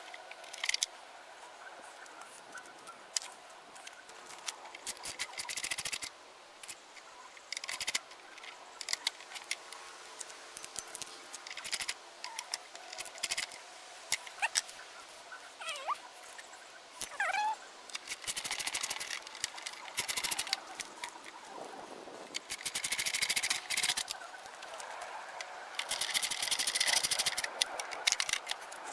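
Small clicks and rustles of wires and plastic parts being fitted into the plastic housing of a Mosquito Magnet Patriot Plus. In the second half these give way to several short stretches of rapid clicking as a hand screwdriver turns screws into the housing.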